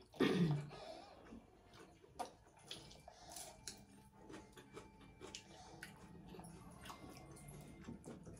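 Close-up eating sounds: wet chewing, lip smacks and small clicks, with rice and curry squished by hand. A short vocal sound falling in pitch comes just after the start.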